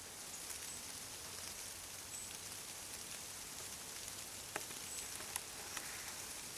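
Thousands of monarch butterflies flapping their wings together, a steady soft hiss like light rain, with a few faint ticks in the second half.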